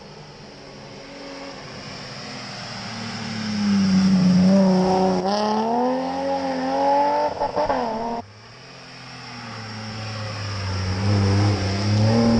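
Rally car engines on a stage run, one after another. The first builds in loudness and rises in pitch as it accelerates, with breaks in the note at the gear changes, then cuts off suddenly about eight seconds in. A second car's engine builds up again near the end.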